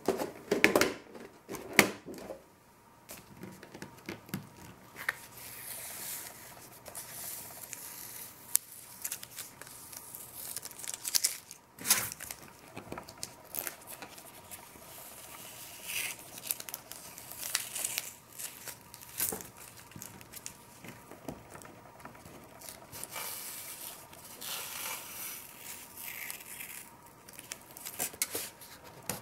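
Masking tape being peeled off the edges of a painted sheet of paper: irregular ripping and crinkling, with scattered knocks and clicks of handling.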